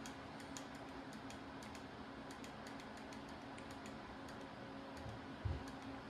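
Faint, irregular clicks from the buttons of a small handheld ARGB fan-light controller being pressed repeatedly, over the steady hum of the purifier's PC case fans running. A single low thump comes about five and a half seconds in.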